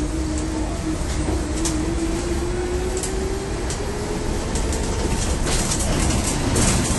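Cabin noise of a Volvo hybrid city bus on the move: a whine rising slowly in pitch as the bus gathers speed on electric drive, with light rattles from the interior. Near the end the diesel engine cuts back in and the sound grows louder and rougher.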